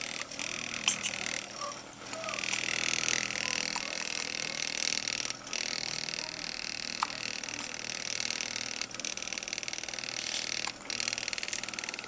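A few sharp, short hiccups, the clearest about a second in and around seven seconds in, over a steady hiss that breaks off briefly every two to four seconds.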